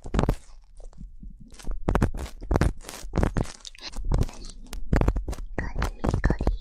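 Ear pick scratching and rubbing close against a microphone's ear in ear-cleaning ASMR: rapid crackling, scraping strokes, with a short lull about a second in before they pick up again.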